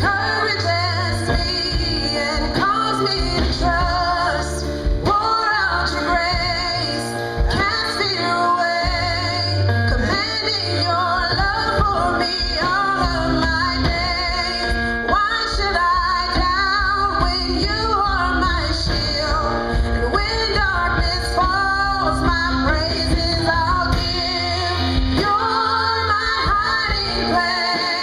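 A song with a woman's voice singing the melody over instrumental backing and a steady bass line.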